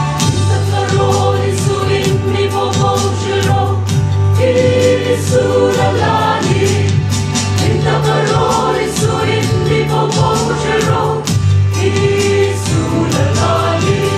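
Mixed choir of men's and women's voices singing a hymn in parts, over instrumental accompaniment with a regular beat.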